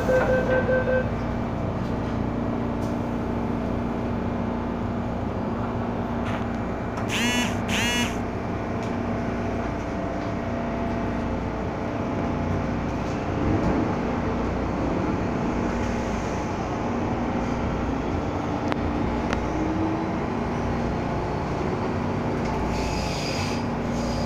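MTR M-Train electric multiple unit heard from inside the carriage: pulsed door-warning beeps end about a second in, then the train pulls away and runs on with a steady rumble and motor hum. Two short high squeals come about seven and eight seconds in.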